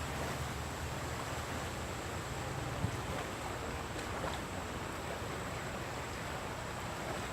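Steady rushing of a fast-flowing river current, with a single faint knock about three seconds in.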